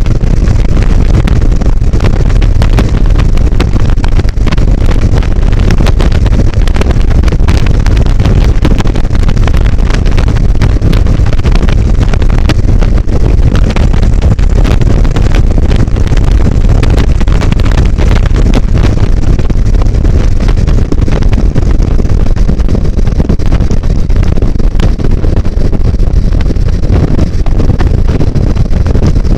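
Wichawk open-cockpit biplane in flight: its engine running under heavy, steady wind buffeting on the microphone.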